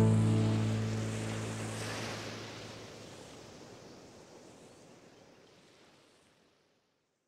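The end of a piano music track: a sustained low chord dies away under a hissing wash of noise, fading out over about five seconds.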